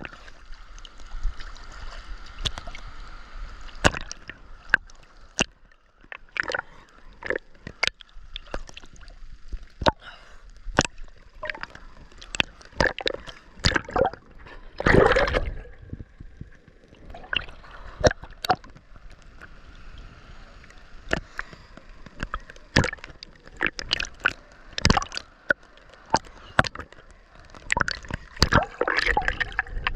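Ocean water splashing and sloshing close to the microphone, with irregular sharp splashes and a louder, longer splash about halfway through.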